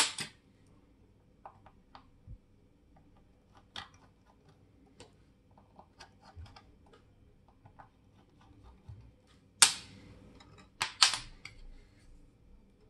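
Small, sharp clicks and taps of watchmaker's tools and small metal watch parts being handled and set down on the bench, sparse and irregular, with a sharp click at the start and a quick cluster of louder clicks about ten to eleven seconds in.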